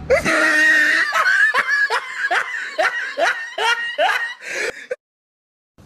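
A person laughing in a quick string of short "ha" bursts, about three a second, which cuts off abruptly about five seconds in.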